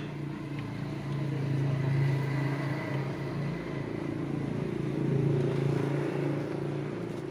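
A motor vehicle engine running at a steady low pitch, getting louder about two seconds in and again about five seconds in.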